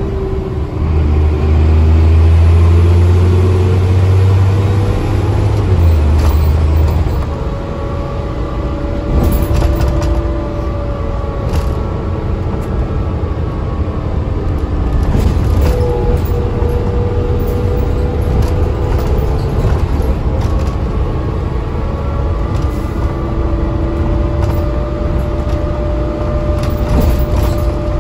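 Dennis Trident double-decker bus on the move, heard from the upper deck: the diesel engine drones strongly for the first several seconds, then eases. A whine rises and falls in pitch as the bus changes speed, with occasional rattles from the body.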